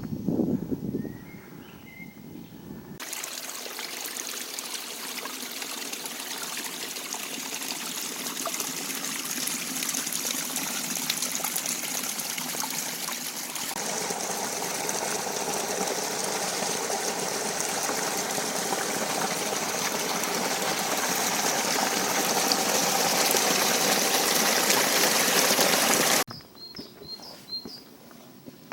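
Running water, a steady splashing rush like a stream or small cascade, that starts abruptly about three seconds in and changes character about halfway through, then cuts off near the end. Before and after it, short high bird calls; near the end one bird repeats a quick falling chirp several times.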